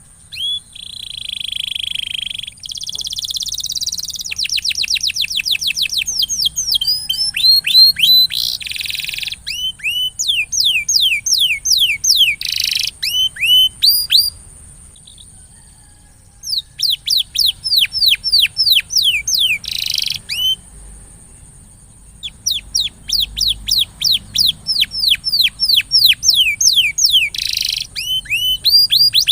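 Domestic canary singing in phrases of rapid, repeated, downward-sweeping notes, about five to six a second, with a couple of short pauses. A faint steady high-pitched tone runs behind it.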